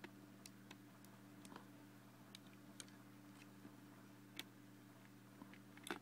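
Faint, irregular clicks and taps of LEGO plastic pieces as a LEGO puzzle box is handled and its parts pressed and slid by hand, with a sharper click about four seconds in and a few more near the end.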